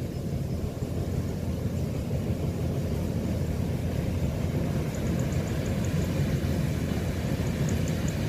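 Kubota DC105X combine harvester's diesel engine running steadily as the machine works through the rice, a low rumble that grows slightly louder as it approaches.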